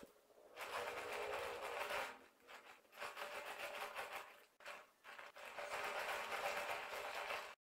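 Metal palette knife scraping chocolate whipped cream smooth on a turning cake turntable: a steady rasping scrape in three stretches, each a second or two long, stopping abruptly near the end.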